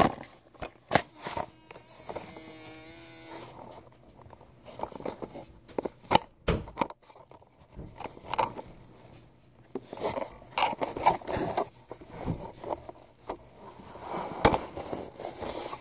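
Handling noise: fabric and fingers rubbing and knocking against a phone's microphone in irregular scrapes and thumps, with a short buzzing tone about two seconds in.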